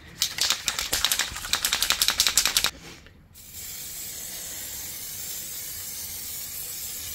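An aerosol can of matte clear varnish shaken hard for about two and a half seconds, its mixing ball rattling in quick clicks. About three and a half seconds in comes a steady spray hiss as the clear coat goes on.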